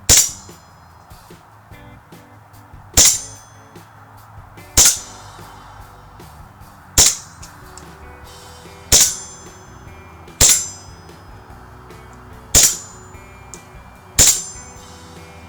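Airsoft gun firing eight single shots, one every second and a half to two seconds, each BB striking a metal target plate with a short ringing clang.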